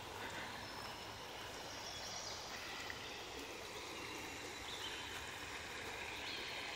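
Shallow creek water flowing steadily, a soft even rushing.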